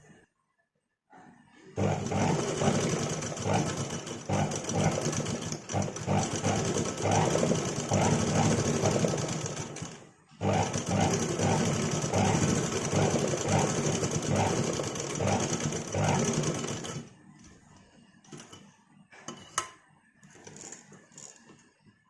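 Sewing machine running at a fast, even stitch rate while darning a tear, in two long runs with a brief stop about ten seconds in. It then stops, leaving a few faint clicks.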